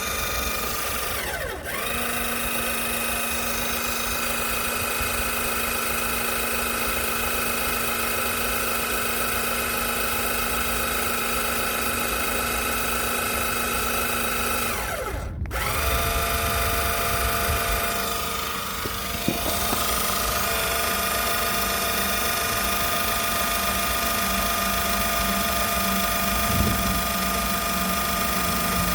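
Electric outrigger (stabiliser jack) motors on a camper van running with a steady drill-like whine. They stop briefly about a second and a half in and again about fifteen seconds in, each time starting again with a short rise in pitch.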